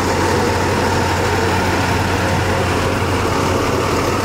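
School bus engine idling with a steady low hum.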